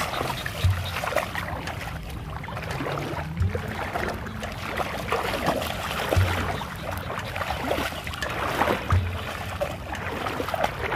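A person wading through shallow, muddy water: a steady run of sloshing and splashing with each stride.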